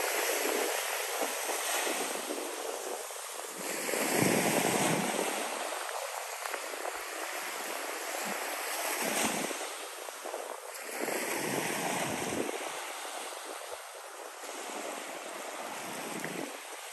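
Small waves breaking and washing up a sandy shore, swelling and fading every few seconds, with the loudest wash about four seconds in.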